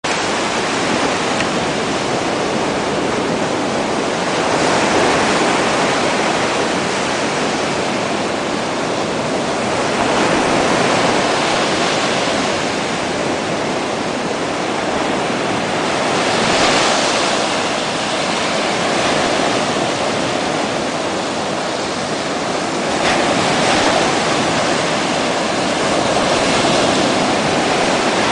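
Surf breaking and washing up a sandy beach: a continuous rush of waves that swells with each breaker every five or six seconds.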